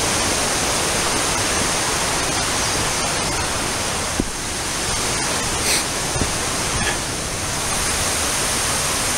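Steady rushing of flowing creek water, with a couple of faint knocks in the middle.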